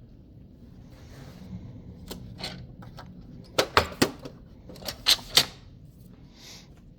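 Small hard tools being handled, with soft rustling at first, then two quick groups of sharp clicks and knocks around the middle.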